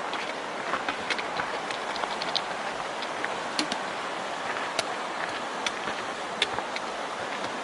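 Hiker walking on a rocky trail: irregular sharp clicks and taps, about one a second, over a steady rushing noise.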